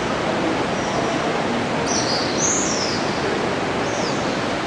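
Swallows giving short, high twittering calls, a cluster about two seconds in and another near four seconds, over a steady rushing noise.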